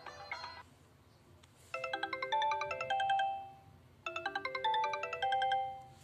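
Preloaded ringtones previewing through a Sony Ericsson Xperia X10 Mini Pro's loudspeaker. The sitar tone cuts off in the first half-second. After a short pause a bright, chime-like melodic phrase plays, then repeats once.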